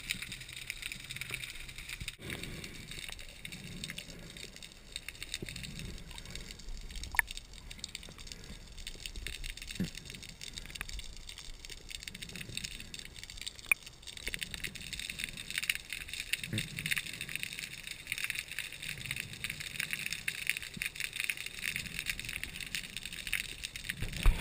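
Underwater sound through a diving camera's housing: a steady fine crackle, with slow low swells of moving water and two sharp clicks, about seven and fourteen seconds in.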